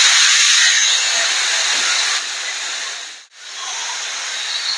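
Pressure cooker whistling: steam escaping from the weight valve on the lid in a loud, steady hiss as the cooker lets off pressure. The hiss breaks off briefly about three seconds in, then carries on a little quieter.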